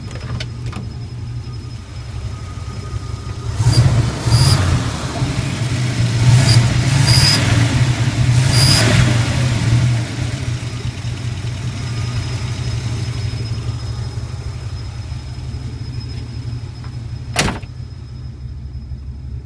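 1981 Pontiac Turbo Trans Am's turbocharged 301 V8 idling hot, then revved several times between about 4 and 10 seconds in, each rise in revs bringing a rushing hiss that the owner puts down to the air management valve. It settles back to idle, with a single sharp click about three-quarters of the way through.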